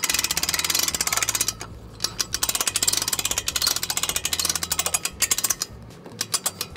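Hand-cranked boat trailer winch ratcheting as its strap is wound in under load, drawing the boat's bow up over the bow roller: a fast, steady run of pawl clicks, broken by a short pause about two seconds in and turning into sparser clicks near the end.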